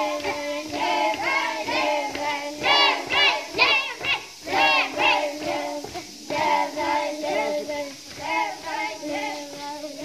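A group of children chanting a prayer together in unison, held on one pitch, with short pauses for breath about four and six seconds in.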